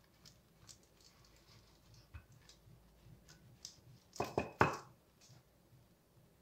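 Wooden rolling pin rolled over slices of soft sandwich bread on paper, with faint rubbing and light taps. A little past four seconds in come three or four louder wooden knocks as the pin is set down on the counter.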